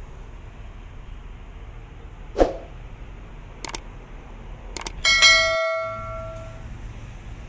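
Subscribe-button animation sound effect: a swoosh about two and a half seconds in, two mouse clicks, then a notification bell chime about five seconds in that rings for about a second and a half.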